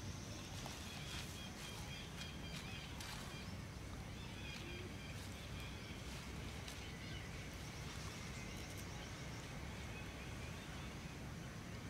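Outdoor ambience with a steady low rumble and faint bird chirps, over scattered scratches and rustles of dry soil and leaves as a long-tailed macaque digs with its hands.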